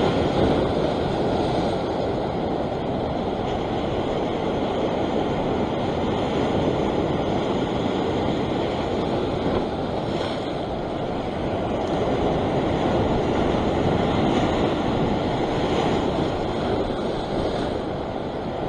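Sea surf washing and foaming over a rock ledge: a steady rushing wash that swells and eases slowly.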